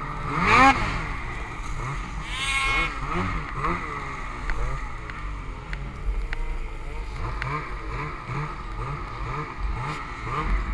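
Snowmobile engine revving up and down again and again as the rider works the throttle through deep snow, over a steady low rumble.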